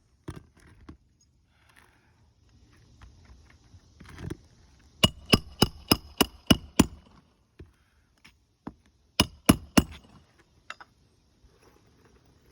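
Hammer driving nails into a replacement roof shingle: a quick run of seven strikes about halfway in, then three more a couple of seconds later, each with a short metallic ring, amid lighter knocks and handling noise.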